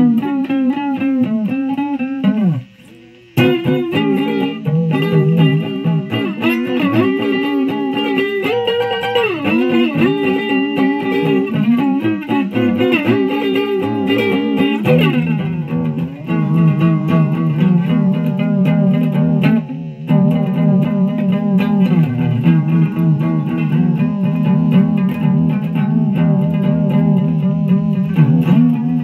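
Electric guitar played lead, single notes with string bends and slides. It stops briefly about three seconds in, then picks up again, and a fuller low part joins about halfway.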